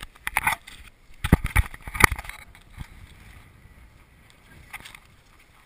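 Handling noise on a GoPro HD Hero camera: a burst of sharp knocks and rubs in the first two seconds, then a faint steady rush with one light click near the end.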